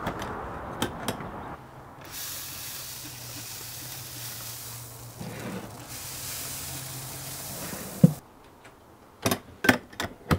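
Hand spray bottle misting apple juice onto smoking ribs in two long hissing sprays. Sharp clicks and knocks as the smoker door is opened at the start and shut near the end.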